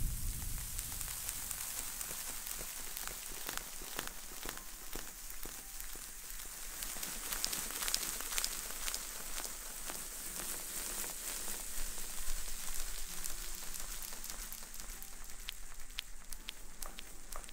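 A fuzzy green object is rubbed and scratched close to an ASMR microphone, making a dense, fine crackling patter like light rain.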